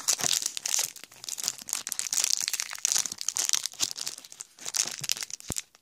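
Shiny foil wrapper of a trading-card booster pack crinkling and crackling continuously as fingers handle it and work at the crimped seam to tear it open, with a brief low knock near the end.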